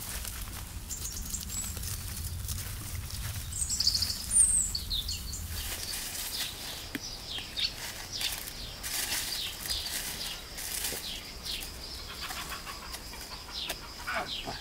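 Dry weeds and pumpkin vines rustling as a large pumpkin is worked free and lifted, with small birds chirping in short, repeated calls.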